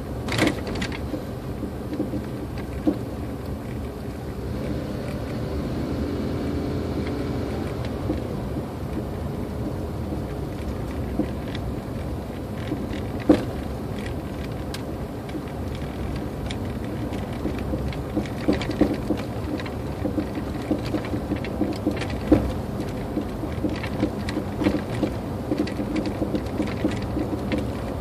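Cab interior of a 2004 Toyota Tacoma coasting downhill: steady road and tyre rumble with irregular sharp pops from the front suspension, growing to several a second in the second half, and a few louder knocks. This is the popping fault the owner is chasing, which new steering rack bushings have not cured.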